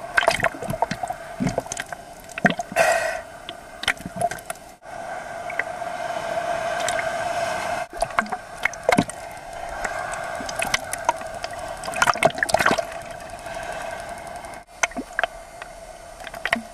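Seawater splashing and lapping against a camera held at the surface, with irregular sharp splashes over a steady hum. The sound drops out briefly three times.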